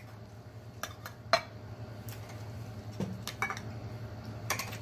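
Empty Armour Vienna sausage cans being set down one after another on a wooden board: several short metallic knocks and clinks, the loudest about a second and a half in.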